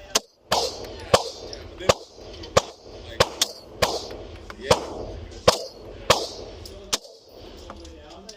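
Laugo Arms Alien 9mm pistol firing a string of about a dozen shots, roughly one every half second to a second, each shot followed by a ringing echo; the shooting stops about seven seconds in.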